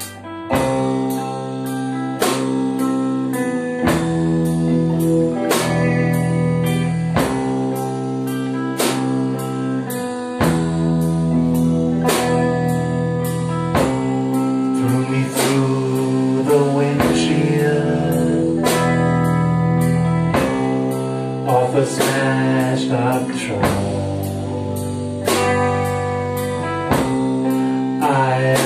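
A live rock trio of semi-hollow electric guitar, electric bass and drum kit playing a steady beat, with a man singing from about halfway through.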